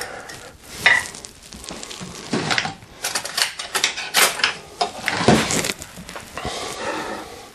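Kitchen clatter: a glass jar and utensils being handled on a counter, a run of scattered clinks and knocks.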